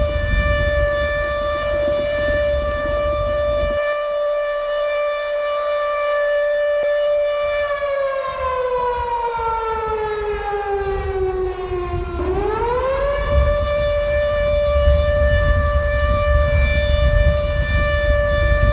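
Siren sounding an earthquake-drill alarm: a steady held wail that sags slowly in pitch about halfway through, then sweeps quickly back up and holds again. A low rumble beneath it drops out early on and returns after the pitch recovers.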